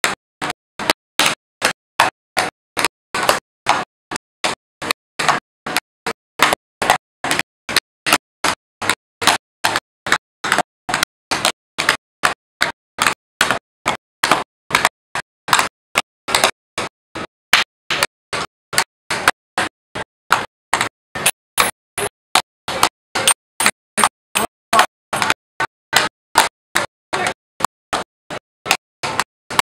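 Tap dancing: the metal taps of tap shoes striking a portable board in a steady run of sharp clicks, about three a second.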